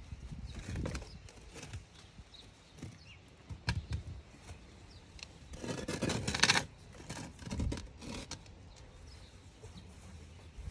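Scrapes, rustles and a few knocks of hands at work, with a longer, louder scraping rustle about six seconds in.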